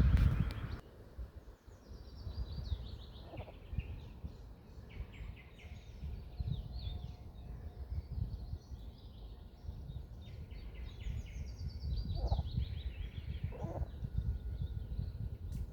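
Songbirds singing outdoors, repeating short phrases of quick notes that step down in pitch, over a steady low rumble. A louder rush of noise cuts off suddenly just under a second in.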